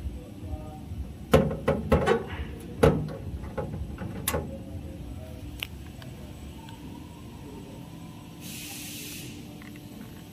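A sheet-metal electrical cabinet door on a circular knitting machine is swung shut and latched, giving a run of knocks and clicks over a steady low factory hum. Near the end there is a short hiss lasting under a second.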